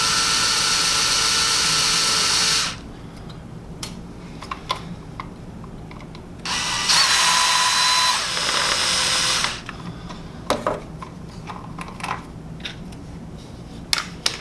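Power drill/driver backing out the screws of a table saw paddle-switch box. The motor whirs and stops about two and a half seconds in, then runs again for about three seconds in the middle. Small clicks and knocks from handling the box fill the gaps.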